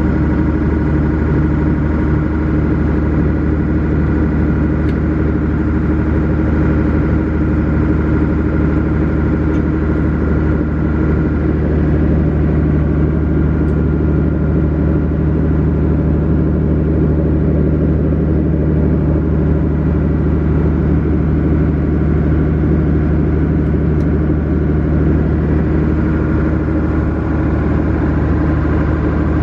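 Small passenger ferry's engine running steadily while the boat is under way: a constant low drone that holds an even pitch throughout.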